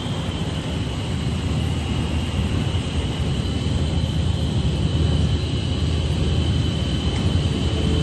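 Plastic recycling pelletizing line running: a steady low machine drone with a thin, steady high whine above it.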